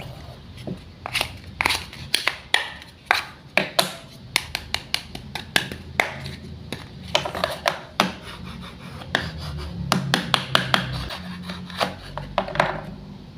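Wooden toy fruits and vegetables being handled and cut with a toy knife: irregular wooden taps and clacks mixed with scratchy rubbing.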